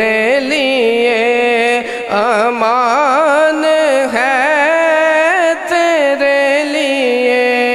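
A solo male voice singing a naat in Urdu/Punjabi into a microphone. He holds long, ornamented phrases whose pitch waves up and down, with short breaks for breath about two, four and five and a half seconds in.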